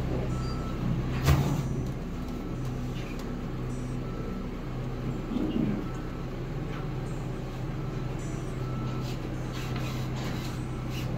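A steady low mechanical hum, like a motor or engine running, with a sharp knock about a second in and a few faint small clicks later.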